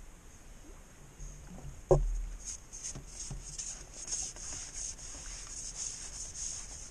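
Fishing tackle handled while landing a fish: a single knock about two seconds in, then a quick run of scraping rubs as the fish is drawn toward the landing net.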